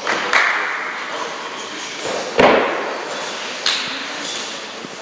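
Three thuds of a gymnast's feet and body hitting a sprung gymnastics floor during tumbling, each with an echoing tail; the heaviest comes about two and a half seconds in.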